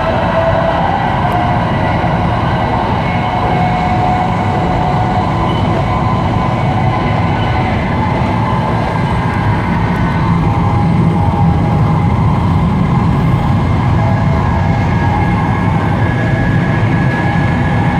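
Taiwan High Speed Rail express train running at speed, heard from the gangway between two cars: a steady, loud rumble and rush with several faint whining tones over it.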